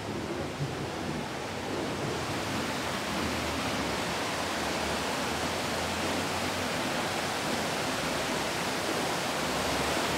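Stream water rushing and cascading down smooth rock slabs: a steady rush of white water that grows a little louder about two seconds in.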